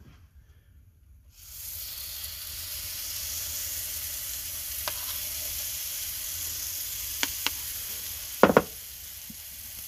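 Waffle batter sizzling on a hot stovetop Belgian waffle iron, starting about a second and a half in as the batter hits the preheated plate and then hissing steadily. A few faint clicks, and a short knock near the end, after which the sizzle is quieter, as the iron is shut.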